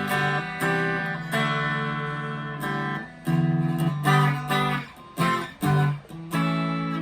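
Chapman ML3 Standard P90 electric guitar on its neck P90 pickup, played clean through a Vox AV15 amp: strummed chords that ring out for a second or more, then shorter, choppy chords about four seconds in.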